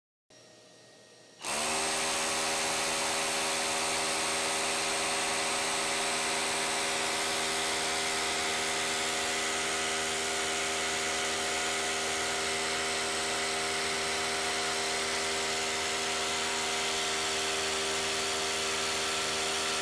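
Milwaukee M18 FUEL 2912-20 1-inch SDS-Plus rotary hammer drilling into concrete, starting about a second and a half in and running steadily at an even pitch for about eighteen seconds.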